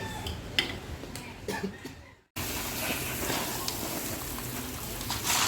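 Rain falling as a steady hiss, with a few faint knocks in the first two seconds. The sound cuts out for a moment about two seconds in, then the hiss resumes.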